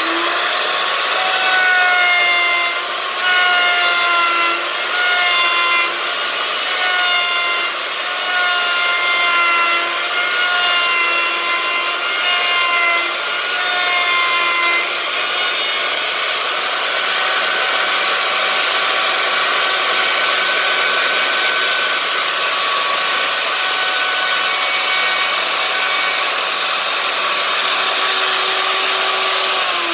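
Electric router mounted upside down as a table router, running at full speed with a high whine while a plywood pulley disc is pressed by hand against its bearing-guided cove bit. Through the first half the whine dips under each pass of the cut, then the router runs freely at a steady pitch and starts to wind down as it is switched off at the very end.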